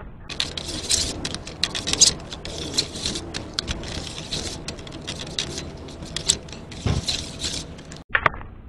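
Plastic spreader scraping and tapping on a mixing board as it mixes two-part body filler: a run of rough scraping strokes with sharp clicks, breaking off briefly near the end.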